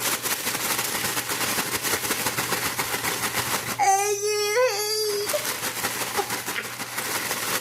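Paper fries bag shaken and rolled hard to coat the fries in seasoning: a fast, continuous crinkling rustle. About four seconds in, a high, drawn-out vocal squeal or whine sounds over it for a second and a half.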